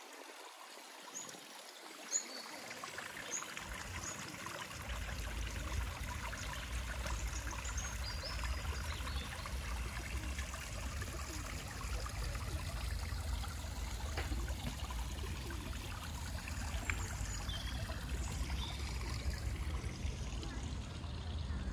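Water trickling steadily, as from a small stream or garden water feature, with scattered high bird chirps. A low rumble joins a few seconds in.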